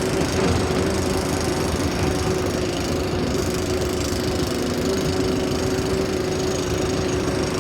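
Diesel engine of a JCB 225LC tracked excavator running steadily under working load, a deep rumble with a constant whine over it.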